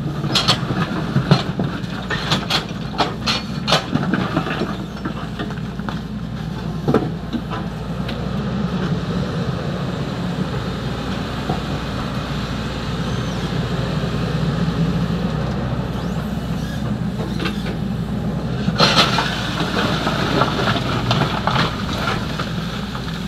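XCMG 75 excavator's diesel engine running steadily, with sand and gravel clattering and scraping in the bucket during the first few seconds and again near the end.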